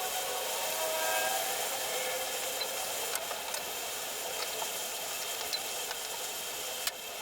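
Rubbing and scraping of hand work on the car's wiring, with a few light clicks and faint music tones about a second in.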